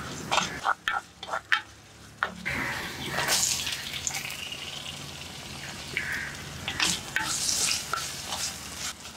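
Chopped green chilli, garlic and ginger sizzling in oil in a clay pot, with a spatula tapping and scraping against the pot. A few seconds in, chopped onion and tomato go in and the sizzle grows fuller, with more scraping as they are stirred.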